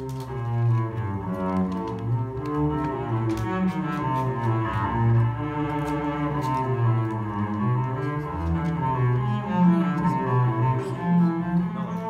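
Cello music: bowed notes held in turn, with low notes under a slower line above them.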